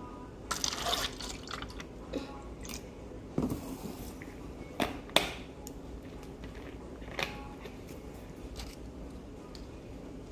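A few scattered sharp clicks and knocks, the sharpest about five seconds in, after a short rustle near the start.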